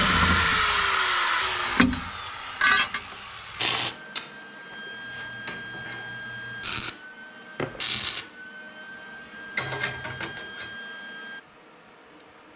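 Power drill drilling out a rivet on a metal bracket, its motor pitch falling before it stops sharply about two seconds in. A few short knocks and clatters follow.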